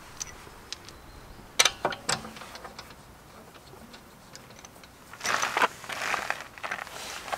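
Metal tools clicking and knocking, then a stretch of scraping and rattling from about five seconds in, as the wheel bolts on the car's rear wheel are worked loose with a wrench.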